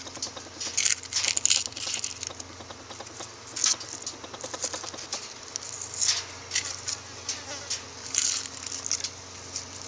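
Irregular soft crackles and wet clicks as the shell and putrid contents of a rotten egg are picked apart.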